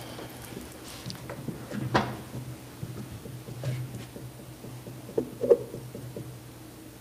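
Room tone: a steady low hum with a few small knocks and clicks, one about two seconds in and a louder one about five and a half seconds in.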